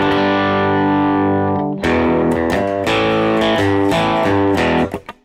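Electric guitar played through a studio compressor pedal and a lightly driven first-stage overdrive. One chord is held for about two seconds, then a run of shorter chords follows, about two a second, and it stops just before the end.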